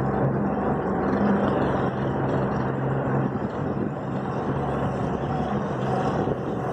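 Motorboat engine running steadily while under way: a constant low hum over an even rushing noise.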